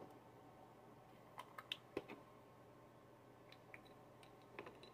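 Faint clicks and taps of small plastic powder containers being handled, a few about a second and a half to two seconds in and a few more near the end, over quiet room tone.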